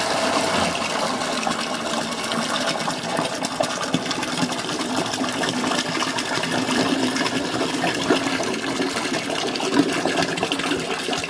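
Watery jute-and-flax paper pulp pouring in a thick stream into a plastic bucket, gushing and splashing steadily as the bucket fills.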